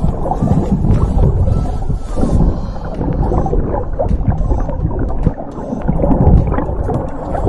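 Muffled underwater noise in a camera's waterproof housing as a spearfisher swims: a loud, steady low rumble of moving water with gurgling and scattered clicks.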